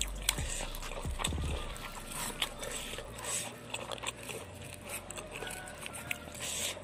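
Eating by hand: chewing with small wet mouth clicks, and fingers picking and scraping through grilled fish and sambal on a plate, in many short irregular ticks.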